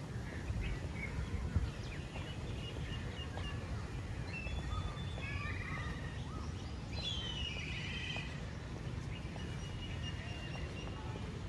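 Outdoor ambience: several birds chirping and calling, loudest about halfway through, over a steady low rumble.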